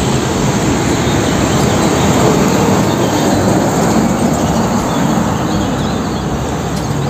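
Heavy vehicle running, loud and steady: a dense noise with faint wavering tones underneath, played as an edited-in sound effect.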